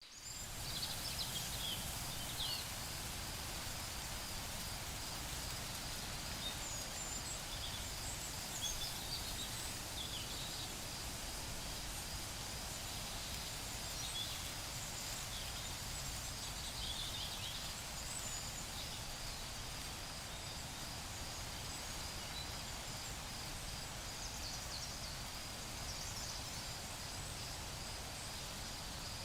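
Forest ambience: a steady, pulsing high insect trill with scattered short bird chirps over a low, even hiss of background noise.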